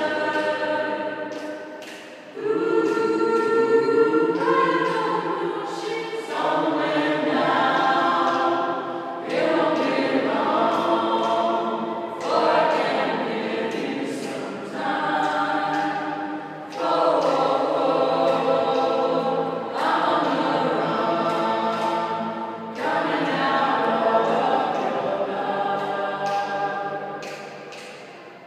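Small mixed men's and women's choir singing a cappella in parts, in the echo of a concrete car park. The phrases come every few seconds, each entering strongly and fading, and the last dies away near the end.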